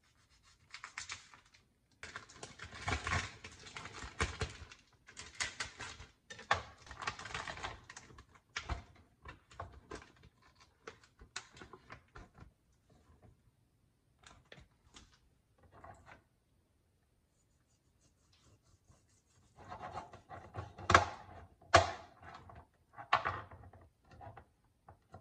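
Plastic packaging around a rack of pork ribs being slit with a knife and pulled off, crinkling and rustling, with the meat and knife knocking on a plastic cutting board. A few sharper, louder knocks come near the end.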